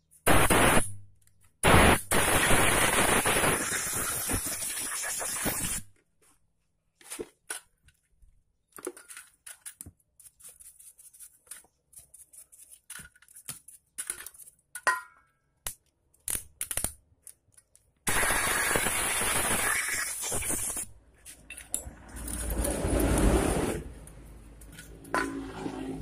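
Hissing spray cleaning out a motorcycle carburetor's holes and passages: one long burst of about four seconds, then a second of about three seconds. Small clicks and knocks of metal parts being handled come between them.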